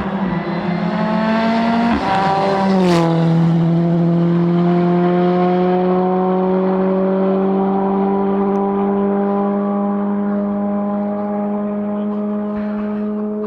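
Rally car engine revving up, with the pitch rising, then an upshift with a sharp crack about three seconds in. After that comes a long steady engine note that slowly fades.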